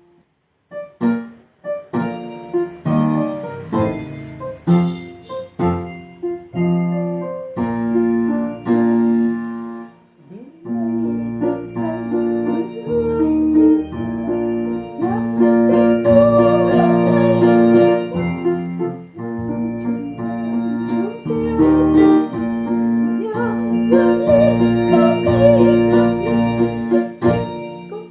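Electronic keyboard playing a piece: separate struck chords for about the first ten seconds, then a fuller arrangement with held bass notes under a wavering melody line.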